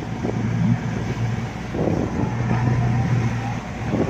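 Motorboat engine running steadily under way, a low hum over the rush of water and wind past the hull.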